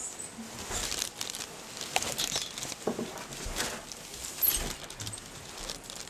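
Footsteps going down steep wooden stairs: irregular knocks and low thumps, with rustling and handling noise in between.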